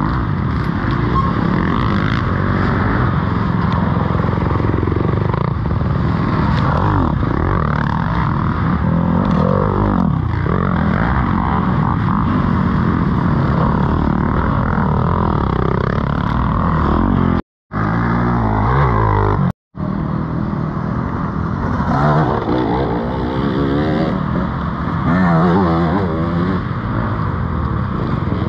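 Dirt bike engines revving, their pitch rising and falling over and over. The sound cuts out to silence twice, briefly, a little past halfway through.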